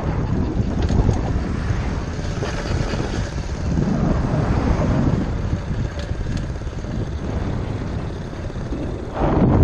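Small gas engine of a custom hybrid motorized bicycle running while riding at road speed, buried in heavy wind rumble on the helmet-mounted microphone. The noise gets louder near the end.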